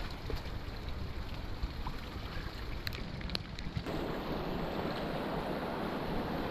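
Quiet flowing creek water around a kayak, with a few faint clicks. About four seconds in it changes abruptly to the louder, steady rush of whitewater as the kayak runs a rapid.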